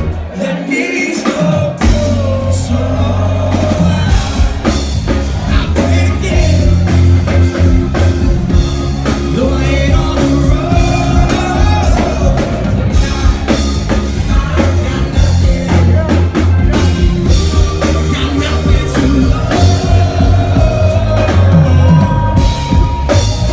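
Live rock band playing a song with a lead vocal, drum kit, bass and guitar. The bass and full band come in about two seconds in.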